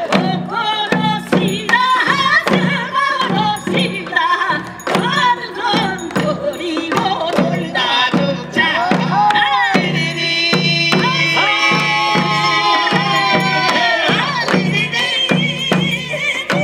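Korean pungmul folk music: drums beating a steady, even rhythm, with a wavering melody over them.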